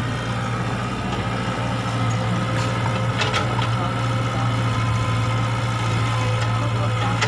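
E120B excavator's diesel engine running with a steady low drone.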